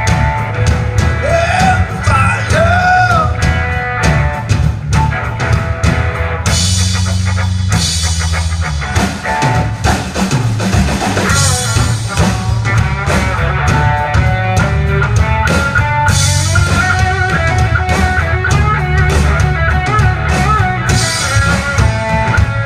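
Live rock band playing an instrumental break: a drum kit keeping a steady beat under bass and other instruments, with a bending melodic line in the first few seconds.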